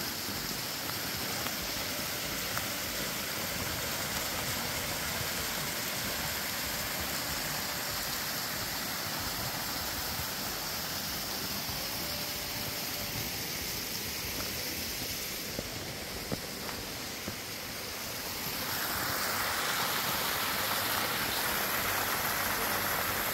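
Small woodland stream cascades: a steady rush of running water over little falls, louder from about 18 seconds in.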